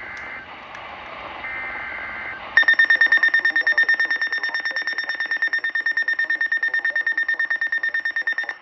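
Emergency alert over NOAA Weather Radio. Through radio hiss comes a burst of the two-pitch warbling data tones of the EAS/SAME header. About two and a half seconds in, a loud, high-pitched alarm starts, beeping rapidly about eight times a second for some six seconds, signalling a Severe Thunderstorm Warning.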